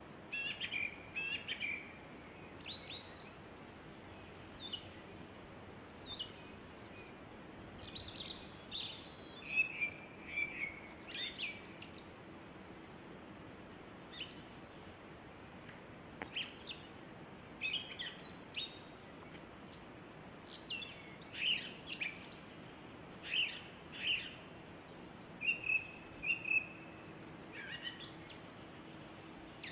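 Small songbirds calling: repeated short, high chirps and brief trills, with short pauses between them.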